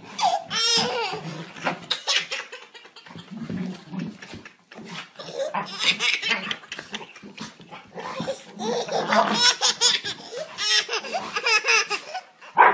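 Baby laughing hard in repeated fits of belly laughs.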